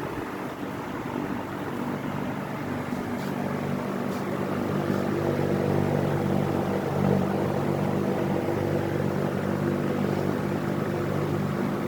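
Qualitas Q600P 130 W wall fan running: a steady motor hum under the rushing air of the blades, growing somewhat louder over the first half.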